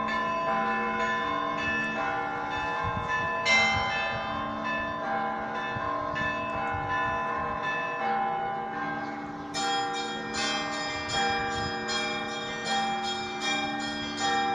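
Russian Orthodox cathedral bells ringing: several bells of different pitch struck in a rhythmic peal over a lingering hum. About ten seconds in, the small bells join in a quicker, brighter run of strokes, roughly three a second.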